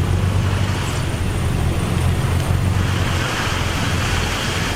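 Heavy diesel machinery running steadily with a deep engine rumble, the engine of a bulldozer or dump truck at work. A louder hiss joins about three seconds in.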